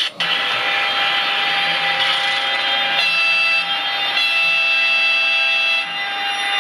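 Sound decoder in a Piko BR 147 model electric locomotive playing its locomotive sounds through a small speaker: a steady electric whine. A higher layered tone sounds twice over it, briefly about three seconds in and again for about a second and a half.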